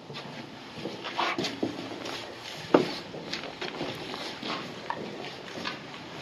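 Footsteps on a concrete floor strewn with debris, irregular steps and scuffs, with one sharper knock a little under three seconds in.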